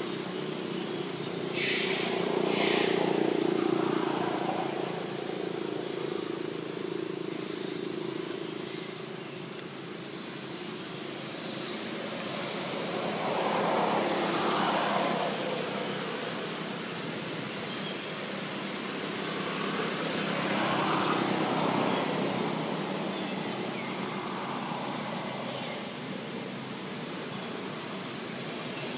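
Distant motor-vehicle engine noise that swells and fades about three times as vehicles pass, over a steady high hiss.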